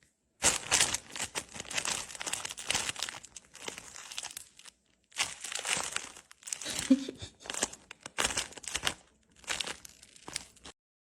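Crinkling and rustling in irregular bursts, with a short break about five seconds in; it cuts off abruptly shortly before the end.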